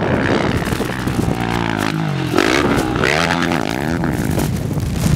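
Sport ATV engine revving as the quad rides the sand dunes, its pitch climbing and dropping several times with the throttle, over a low rumble of wind on the microphone.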